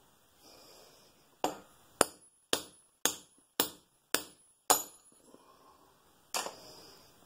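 Hammer striking a steel punch to drive the worm gear shaft out of a Bridgeport mill's J-head housing: seven ringing metal-on-metal blows about half a second apart, then one more after a short pause, which frees the shaft.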